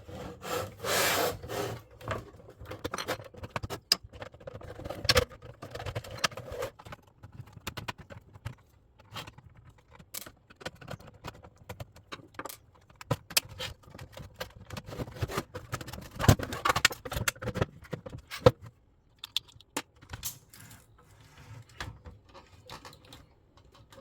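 Irregular clicks, knocks and scrapes of hands and tools handling and opening a plastic radio cassette recorder to get at its circuit board.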